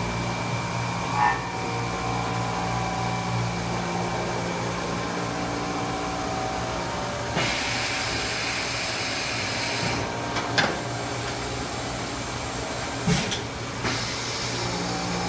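Haas EC-400PP horizontal machining center running: a steady hum with a motor whine. A hiss starts about seven seconds in and stops two or three seconds later. Sharp mechanical clunks come near the start and three times near the end as the automatic tool changer swaps a tool.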